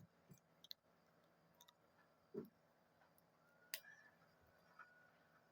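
Near silence with a few faint, scattered clicks and a soft thump about two and a half seconds in.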